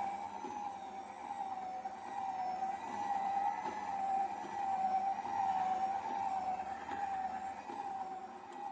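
Sharp EMS80 stand mixer running with its whisk in the stainless steel bowl: a steady motor whine that wavers slightly in pitch about once a second.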